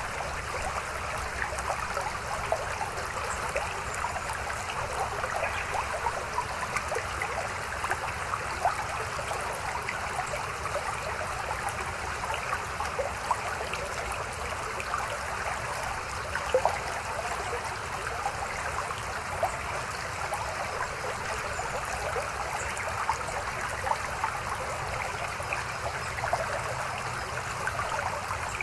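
A shallow mountain stream babbling steadily over rocks, a constant rush of water flecked with small splashes and trickles.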